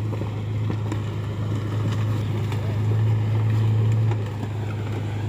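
Pickup truck engine running at low speed as it tows a loaded old truck box along the ground on a rope, a steady low hum with a rough dragging rumble over it. It gets a little louder between about three and four seconds in.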